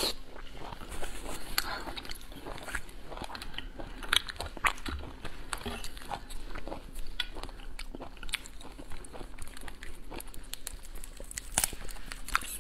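Close-miked eating of cooked lobster: chewing and crunching, with many short sharp cracks of the shell being broken and pulled apart by hand.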